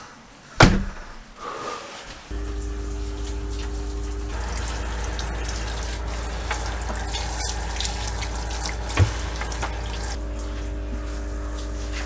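A sharp knock, then a small electric water pump starts about two seconds in and runs with a steady hum. From about four seconds in, a hand-held shower head sprays water onto a dog's wet coat.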